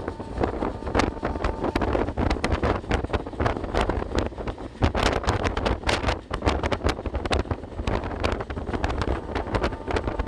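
Indian Railways train running at speed, heard from the coach's open door or window: a steady low rumble and rattle with many sharp clicks and knocks, and wind buffeting the microphone.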